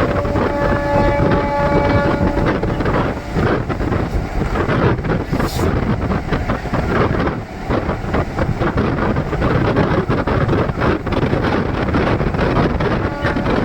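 DEMU express train running along the track, heard from on board: steady rush and rattle of the coaches with wind buffeting the microphone. A horn-like tone sounds about half a second in and lasts about two seconds.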